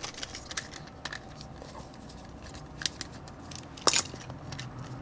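Light clicks and taps of hard plastic toy parts being handled and unscrewed as the wheels come off a plastic toy truck, with a sharper click about four seconds in.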